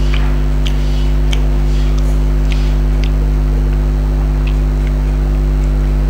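Close-miked eating and handling sounds: scattered soft clicks and smacks from chewing and from fingers and plates handling chilli chicken. Under them runs a loud, steady low hum.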